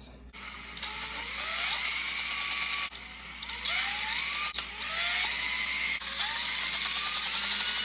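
DeWalt cordless drill boring small holes into a foam model-aircraft wing, running in several runs separated by short breaks. Its high whine dips briefly each time the bit bites into the foam.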